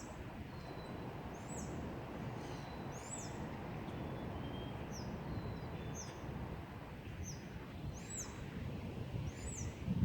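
Wind blowing through trees, a steady low rush that swells and eases. A bird repeats a short, high, falling chirp about once a second over it.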